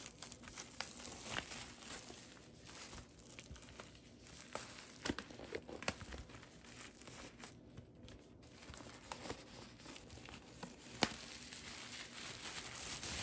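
Plastic shrink-wrap being torn and peeled off a vinyl LP jacket by hand: continuous crinkling and crackling, with a sharp snap about eleven seconds in.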